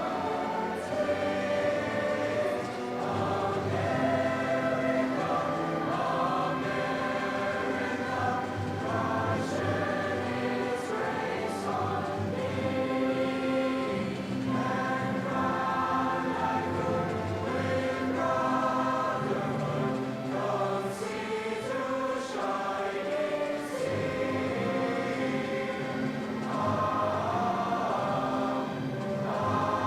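A choir singing, in long held notes.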